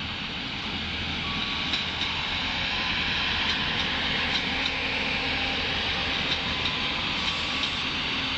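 Prambanan Ekspres diesel multiple unit passing on a far track: a steady rumble of engine and running gear that swells slightly, with scattered faint wheel clicks.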